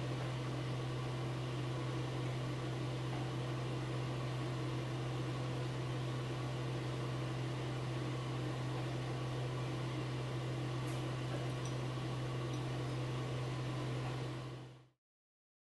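Steady low hum with an even hiss over it, fading out near the end.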